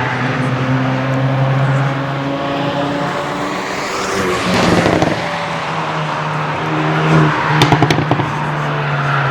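Cars driving hard past on a race track, engines holding a steady note, one car sweeping past about halfway through. Near the end a quick string of sharp exhaust crackles and pops.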